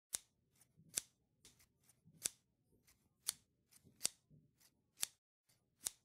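A series of sharp clicks, seven loud ones roughly a second apart with fainter ticks in between: a sound effect over an animated intro.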